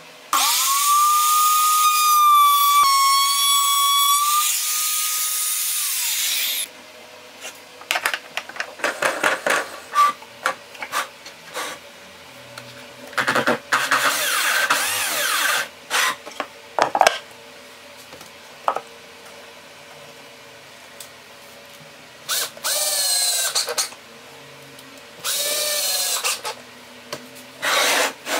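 A compact trim router runs with a loud, steady high whine for about six seconds, then stops. Clicks, knocks and a short scraping burst follow. Near the end a power drill spins up twice in short bursts that rise in pitch.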